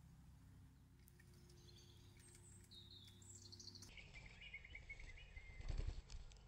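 Faint, high, thin bird chirps and short trills over a low steady hum, with a few low thumps near the end.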